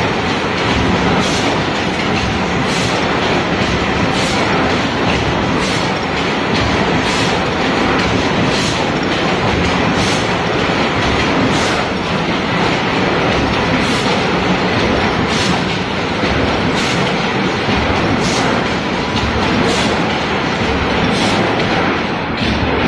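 Automatic tin can making line running: steady machine noise from the conveyors and forming machines, with a sharp click repeating about every three-quarters of a second.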